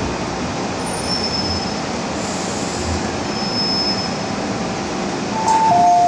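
MTR M-Train running underground and slowing into a station, the rumble of wheels on rail broken twice by a thin high squeal. Just over five seconds in, a two-note door chime starts, alternating high and low, as the train stops and its doors open.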